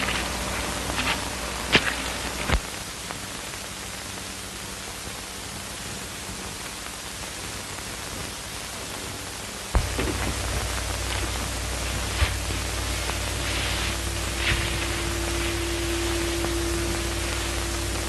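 Steady hiss and crackle of an early-1930s optical film soundtrack, with scattered clicks and pops. A low hum cuts out after a sharp click about two and a half seconds in and comes back with another click near ten seconds. A faint steady tone joins it near the end.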